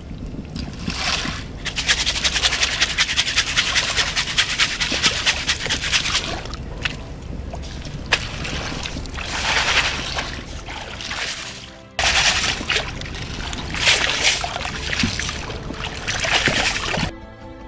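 Horn snail shells rattling and scraping against each other in a wire-mesh basket as it is swished and shaken in muddy water, with splashing and sloshing that swell and fade several times. Music comes in near the end.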